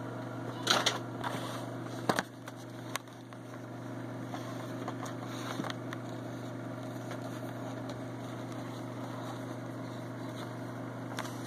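A few crinkles and clicks of a plastic blister-pack toy card being handled in the first few seconds, over a steady low hum.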